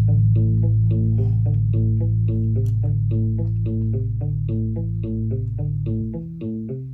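Electric bass guitar played with a pick along with a backing track: a long low note is held under a repeating guitar figure of about five notes a second. About six seconds in the held note stops and the bass moves to shorter, separate notes.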